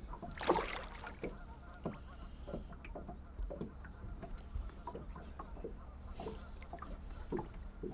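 Small waves lapping and knocking irregularly against the hull of a drifting fishing boat, over a steady low wind rumble. A single short honking bird call comes about half a second in.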